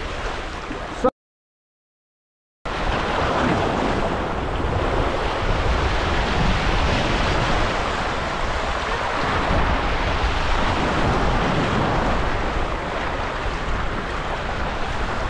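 Small waves washing and lapping over a rock shelf, mixed with wind rumbling on the microphone. The sound cuts out completely about a second in for a second and a half, then goes on steadily.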